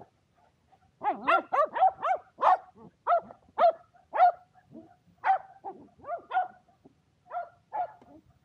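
Shetland sheepdog barking in an excited run of short, high barks, starting about a second in, quick and close together at first, then more spaced out.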